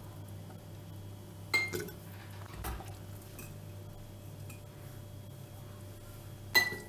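Metal ladle scooping peppers in tomato sauce from a stainless steel pot, with two short ringing clinks of metal, one about a second and a half in and one near the end. A steady low hum runs underneath.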